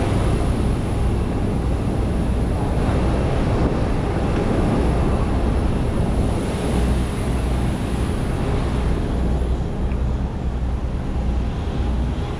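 Steady low rumble and rush of jet airliner noise, with a constant deep hum underneath.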